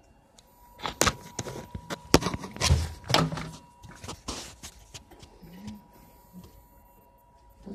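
Handling noise: a string of clicks, knocks and light thuds as the phone is moved around, bunched in the first few seconds, with a faint steady high tone underneath.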